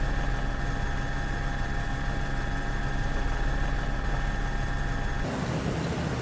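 Steady hum and whine of a helicopter's engine and rotor, picked up from the aircraft filming the scene. About five seconds in it cuts off abruptly and gives way to a rougher, deeper rushing noise.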